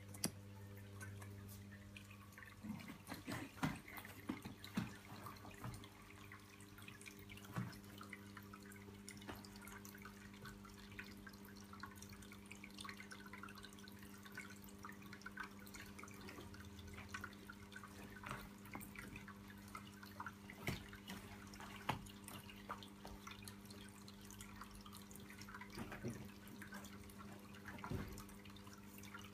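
Faint steady electrical hum with scattered small clicks and taps.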